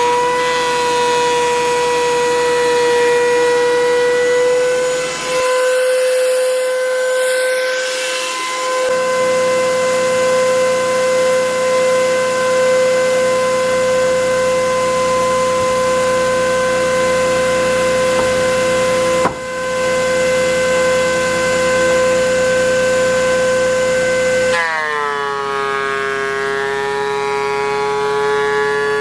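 Thickness planer running with a steady high whine. Near the end the pitch drops and stays lower as the machine comes under load. There is a single click about two-thirds of the way through.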